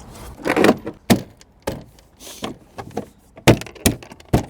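Irregular sharp knocks and clicks from hands and tools working on a car door while a soft-close door latch is fitted, with a short scrape about half a second in. The loudest knocks come about three and a half seconds in.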